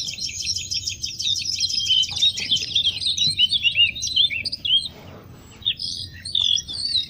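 A chorus of small birds chirping and twittering densely, with quick high chirps overlapping throughout, thinning out briefly about five seconds in.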